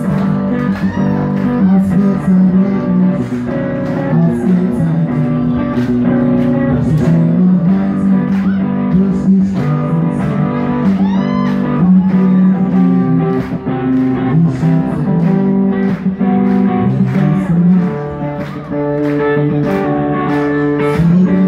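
Live band playing a song on bass guitar, guitar and drum kit, with the drums keeping a steady beat.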